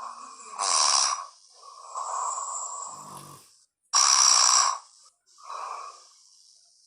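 A man snoring in his sleep: four snores in about six seconds, the first and the third, about four seconds in, the loudest, the last one short and weaker.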